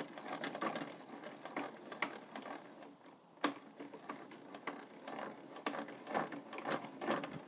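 Metal parts of a DeWalt DW7485 table saw clicking and rattling in quick, uneven strokes as its mechanism is worked by hand, with one sharper click about three and a half seconds in.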